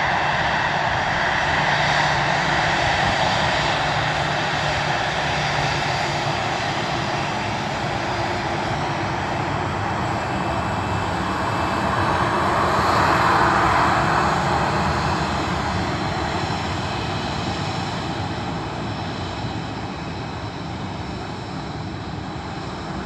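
Boeing 737-800's CFM56-7B jet engines running at taxi power as the airliner rolls past: a steady whine over a rushing hiss. It grows loudest about thirteen seconds in as the aircraft passes closest, then fades as it moves away.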